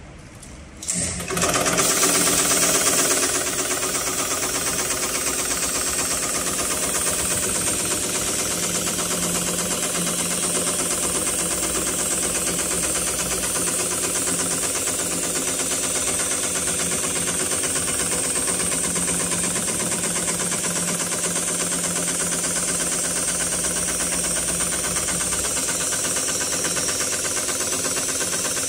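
HighTex 7273CNC heavy-duty programmable pattern sewing machine starting about a second in and stitching through thick polyester sling webbing at a fast, steady rate. It is a little louder for the first couple of seconds, then runs on evenly.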